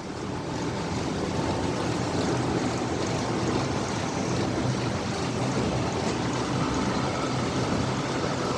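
Cattle-feed mill machinery running steadily: an even rushing noise with a faint low hum underneath.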